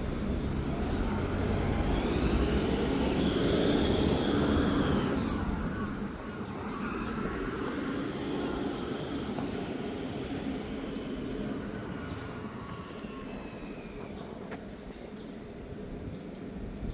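Road traffic: a vehicle passes close by, loudest from about two to five seconds in, then the noise eases to quieter, steadier traffic.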